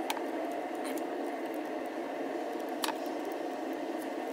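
A steady hum with a few light clicks and taps as the old bandsaw switch and its wires are handled.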